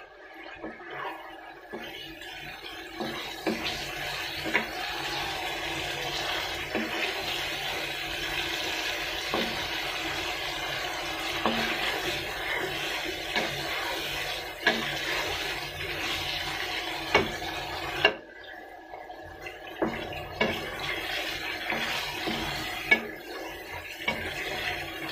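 Rohu fish pieces in masala sizzling in a non-stick wok, stirred with a wooden spatula that knocks against the pan now and then. The sizzle drops away briefly about two-thirds of the way through.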